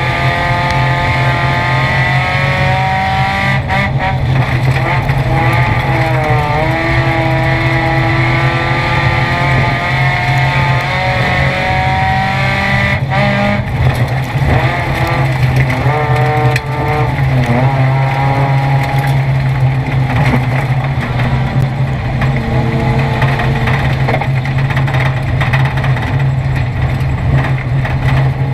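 Mitsubishi Eclipse race car's engine running hard under load, heard from inside the cabin, its pitch rising and falling with the throttle.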